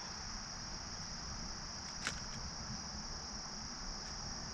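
Steady, high-pitched chorus of insects such as crickets, with a single sharp click about two seconds in.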